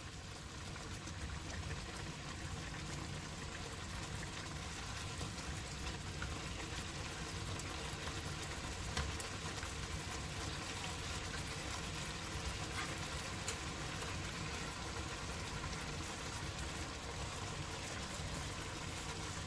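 Brown stew fish gravy simmering in the pot: a steady bubbling hiss with a few faint ticks.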